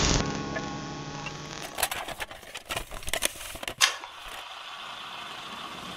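The intro music dies away, then a run of sharp, irregular cracks for about two seconds, giving way to a steady hiss of rain ambience.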